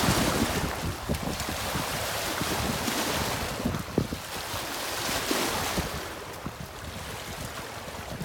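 Wind buffeting the microphone over river water washing against shoreline rocks, a steady rush that eases off about six seconds in.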